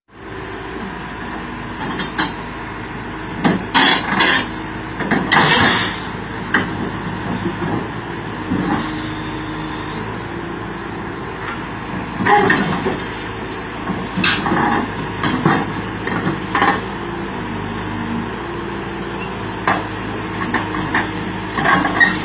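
Excavator's diesel engine running, its pitch shifting now and then, with repeated sharp metal knocks and clanks over it.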